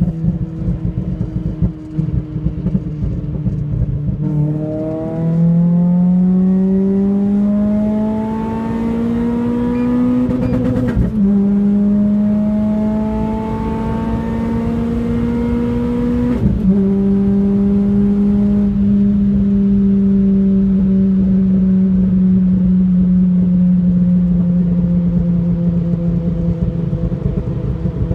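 Renault Clio RS engine under hard acceleration. It holds a steady note for about four seconds, then rises in pitch, with upshifts about eleven and sixteen seconds in. After the second shift it settles into a long, slowly falling note at cruising speed.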